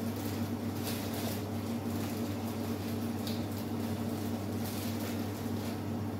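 Steady low machine hum of kitchen equipment, with a few faint crinkles of a plastic bag as almonds are picked out by hand.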